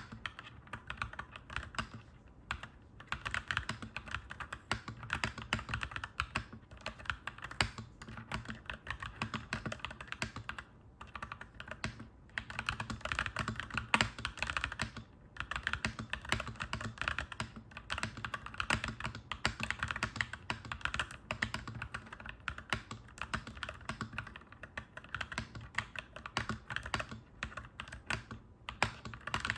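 Clacky mechanical keyboard being typed on in quick, continuous runs of keystrokes, broken by a few brief pauses.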